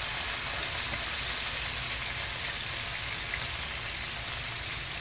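Minced meat (keema) sizzling as it fries in hot oil in a nonstick frying pan: a steady hiss with a few faint pops.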